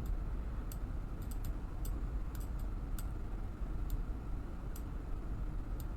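Scattered, irregular clicks of a computer mouse, about ten over a few seconds, over a steady low room hum.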